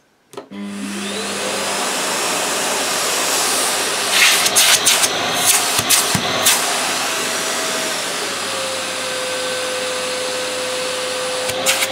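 Vax VCC-08A tub vacuum cleaner switched on with a click, its 800 W motor spinning up with a rising whine to full power and then running steadily, with a few clattering knocks from handling the metal extension tube about four to six seconds in. About eight seconds in, the motor's pitch steps down as it is switched into its quieter hush mode.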